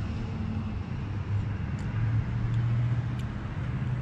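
A motor vehicle's engine running with a low, steady hum that steps up slightly in pitch about two seconds in, with a few faint ticks over it.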